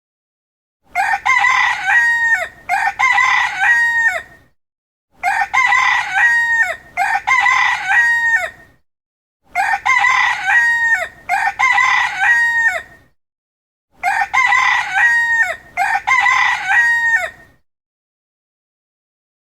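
Rooster crowing cock-a-doodle-doo: eight crows in four identical pairs, each pair followed by about a second of dead silence, as from a looped recording.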